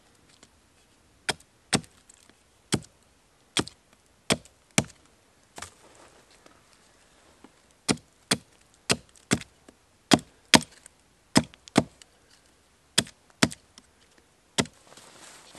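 Hatchet striking a wooden stick on a log: a run of sharp wooden knocks, one to three a second, with a pause of about two seconds midway.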